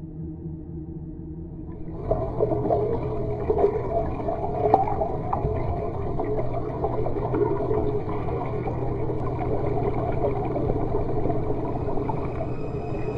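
Muffled underwater ambience: a faint low hum, then a dense, steady wash of submerged sound that comes in about two seconds in.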